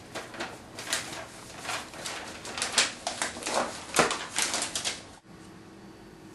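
Paper crinkling and rustling in quick irregular bursts as old school notes are wrapped around a gift. It stops abruptly about five seconds in, leaving a faint steady hum.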